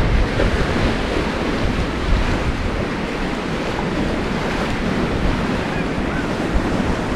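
Sea surf washing onto a beach, a steady rushing noise, with wind buffeting the microphone.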